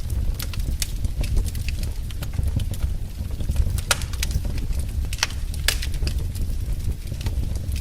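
Wood fire burning in a fireplace, a steady low rumble of the flames with sharp, irregular crackles and pops, several of them louder snaps.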